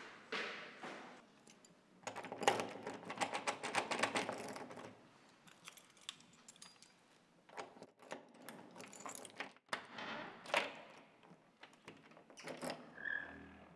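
A ring of keys jangling and clicking as they are tried in a door lock and the doorknob is turned, in two bursts of rapid metal clicks. A short squeak near the end.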